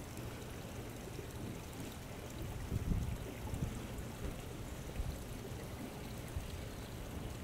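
Quiet steady outdoor background noise: a soft rush with a faint low hum, and a few brief low thumps about three and five seconds in.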